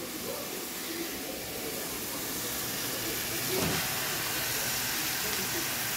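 Ground beef frying in oil in a pan, a steady sizzle that grows slightly louder.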